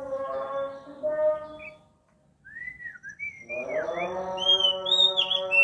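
Oriental magpie-robin (kacer) singing: a run of varied whistled notes that rise and fall, starting about halfway through. Behind it is a steady droning tone that drops out briefly about two seconds in and then returns.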